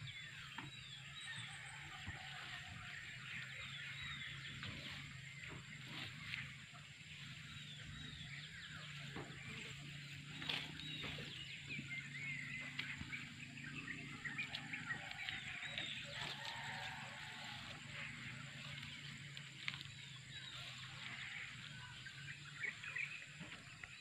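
Many small birds chirping and twittering, short quick calls overlapping throughout, over a faint steady low hum.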